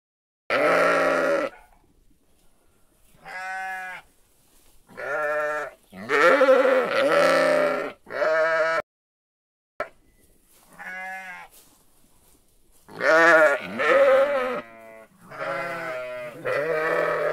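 Sheep bleating: a string of about ten separate quavering baas, a second or so each, with two calls overlapping now and then and short quiet gaps between them.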